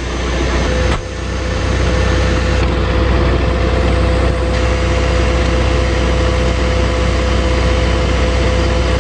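Farm tractor engine running at a steady idle right after being started, settling into an even drone about a second in.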